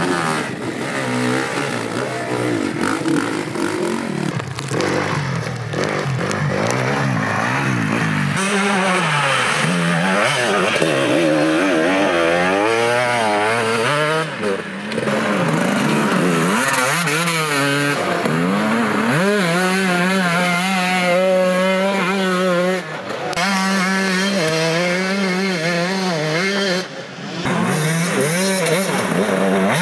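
Enduro dirt bike engines revving, the pitch rising and falling over and over as the throttle is worked. In the first seconds a bike is revved while it is pushed up a rock step; after that bikes rev through mud, with a few brief dips between them.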